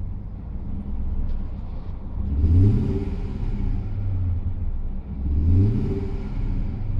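Audi V8 engine idling and being revved twice. Each rev rises in pitch and then drops back to idle, the first a little over two seconds in and the second about five seconds in.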